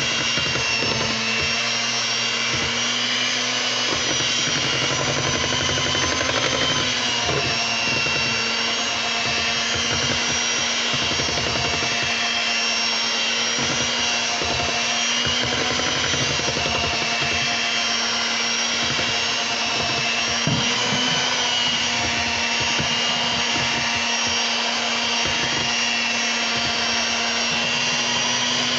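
Electric hand mixer running steadily at one speed, its beaters whipping thick pound cake batter in a stainless steel bowl, with a constant motor whine and hum.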